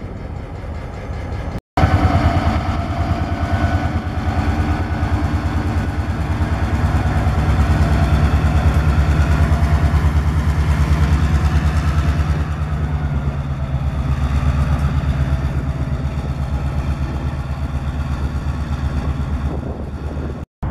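Diesel road-switcher locomotive's engine running close by, a loud steady rumble with a fast even beat. The sound cuts out briefly a couple of seconds in and comes back louder.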